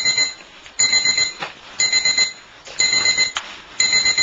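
An electronic alarm beeping steadily, about one high-pitched beep a second, each beep lasting about half a second.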